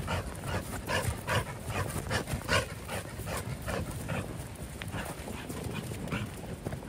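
A pit bull–type dog panting hard in quick, rhythmic breaths while running with a ball in its mouth; the breaths grow weaker in the last couple of seconds.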